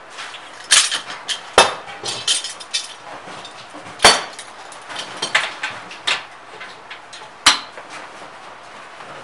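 Metal hand tools clanking and knocking against copper and the workbench: a string of sharp, irregular knocks, the loudest about a second and a half in, around four seconds in, and about seven and a half seconds in.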